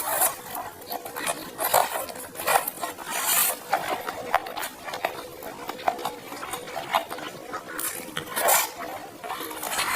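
Close-up eating sounds: slurping and chewing juicy rice noodles, with irregular wet mouth smacks and a few louder slurps.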